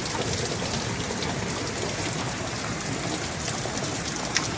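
Steady rain falling, an even patter of drops on surfaces.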